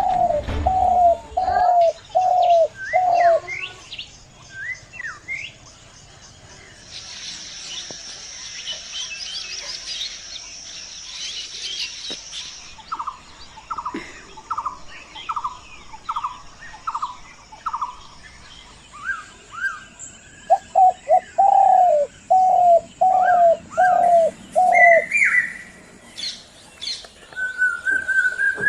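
Several wild birds calling in a morning chorus. One bird repeats a short falling note five or six times in a row, once at the start and again about two-thirds of the way through. Another repeats a higher note in a run just before the middle, with scattered high chirps throughout and a few seconds of hissing chatter about a quarter of the way in.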